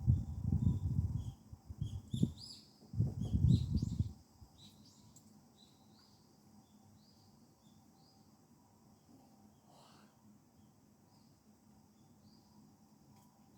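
A small bird chirping over and over in short, high calls about every half second. Three spells of loud, low, muffled rumbling fill the first four seconds, then die away.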